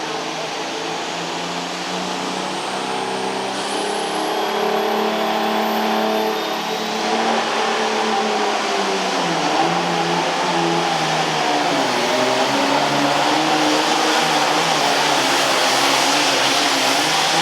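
Super Farm class turbocharged diesel pulling tractor under full load during a pull, getting louder as it goes. A high turbocharger whine climbs about four seconds in, and the engine note sags around the middle of the pass before climbing again.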